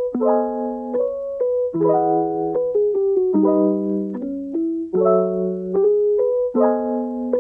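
Background music on a piano-like keyboard: sustained chords under a simple melody, a new chord about every second and a half.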